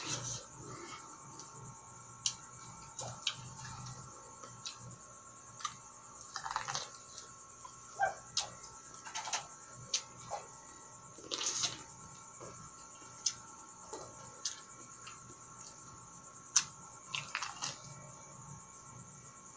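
Sweet corn on the cob being bitten and chewed close to the microphone: irregular crisp crunches and wet mouth clicks as kernels are pulled off the cob.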